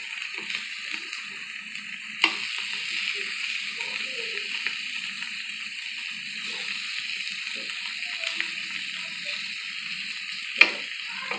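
Thin meat steaks sizzling steadily on an electric grill plate. Metal tongs click against the grill twice, about two seconds in and near the end.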